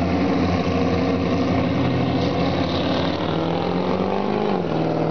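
Vehicle engines idling, from a pickup push truck and a 1350cc streamliner motorcycle. About three seconds in, one engine's pitch climbs steadily for over a second, then drops back and holds steady as the truck moves off.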